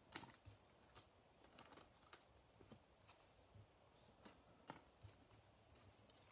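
Faint, scattered taps and slides of baseball trading cards being handled and laid down on a play mat.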